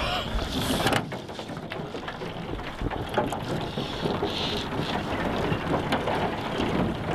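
Small boat pushing through thin skim ice: broken ice plates crackling, clinking and scraping along the hull, scattered sharp ticks over a steady rushing noise. This begins about a second in, after a short moment of voices.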